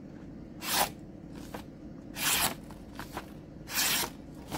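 A sharp knife blade slicing through a sheet of paper: three short slicing swishes about a second and a half apart, with fainter paper rustles between, as the edge is tested for sharpness.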